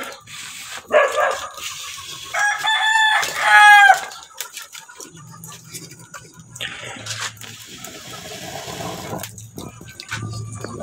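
A rooster crowing: one long call about two to four seconds in, bending down in pitch at its end.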